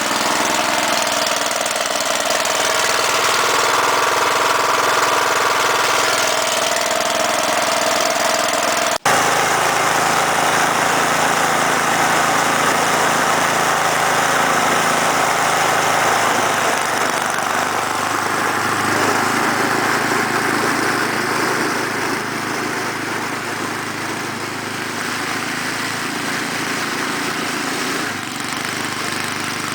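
The 10 hp Tecumseh Snow King overhead-valve engine of a Toro Powershift 1028 snowblower running steadily just after a cold start, with a momentary break about nine seconds in.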